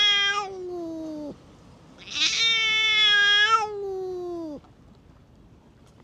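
Stray cat giving long, drawn-out yowls of the kind cats trade in a standoff. One yowl is already going and drops away about a second in; a second one lasts over two seconds and sinks in pitch as it ends.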